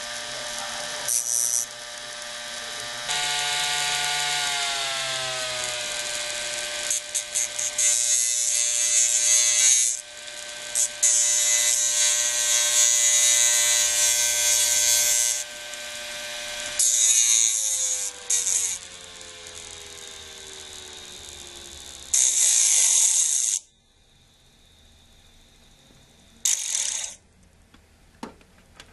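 Hard-drive spindle motor spinning a platter faced with an abrasive disc, with a pencil tip pressed against it: a harsh grinding hiss comes in repeated stretches over the motor's whine, and the whine falls in pitch under the load. About three-quarters of the way through the grinding stops, leaving a faint hum and one more brief grinding touch.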